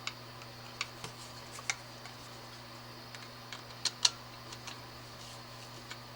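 Scattered light clicks and ticks of a screwdriver and screw being worked into a cable clamp on an electrical box, with a close pair of louder clicks about four seconds in. A steady low hum runs underneath.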